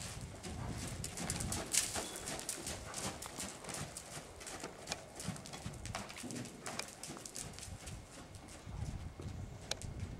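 Hoofbeats of a ridden horse moving briskly over the sand footing of a covered riding arena: a quick, uneven run of sharp clicks and dull thuds.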